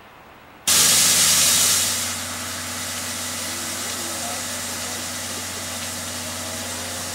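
C56 steam locomotive (C56 160) standing with steam hissing: a loud hiss starts suddenly under a second in, then after about a second and a half eases into a steadier hiss over a low steady hum.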